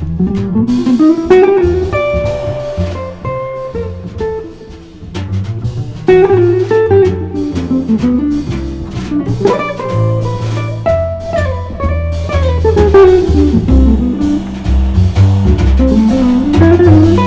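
Live jazz trio of guitar, bass and drum kit playing a waltz, with the guitar taking a melody of quick runs that climb and fall over a walking bass and light drums.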